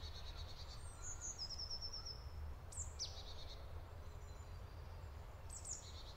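Songbirds calling in a forest: high chirps, a short trill of evenly repeated notes about a second and a half in, and a sharply falling call near three seconds, over a faint low rumble.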